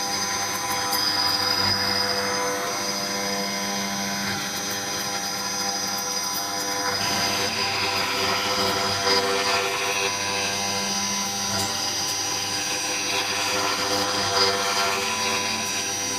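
CNC router spindle running steadily while its end mill cuts a pocket into a wooden board: a steady high whine over the noise of the cut.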